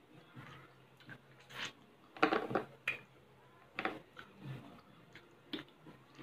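Close-miked eating of baked mussels and rice: chewing with wet mouth clicks and smacks, and a few sharp clicks of cutlery or shell on the platter, the loudest cluster a little after two seconds in.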